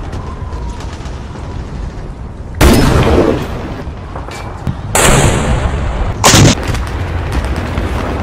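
Battle sound effects of gunfire and explosions over a steady low rumble, with three loud blasts: the first a few seconds in, then two close together just after the middle, one trailed by a falling whistle.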